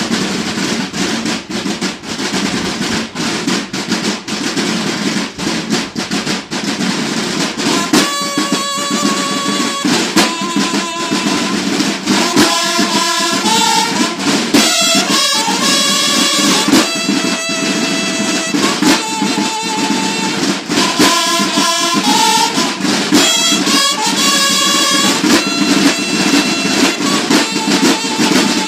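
Marching band of snare drums, bass drums and brass horns playing. The drums play alone at first, and about eight seconds in the horns come in with a melody over the drumming.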